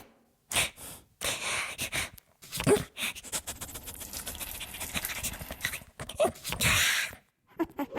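A domestic cat making a few short calls among rustling and handling noise.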